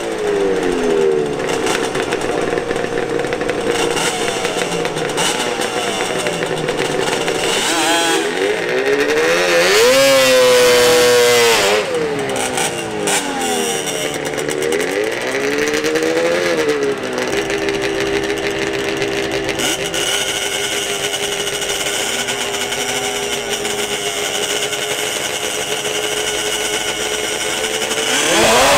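Drag-racing quad ATV engines revving up and down in repeated sweeps, then holding a steady high rev for several seconds, with a sharp climb in revs near the end as they launch off the line.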